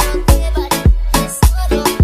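Music: a dance track with a deep bass beat hitting about every half second under short synth notes.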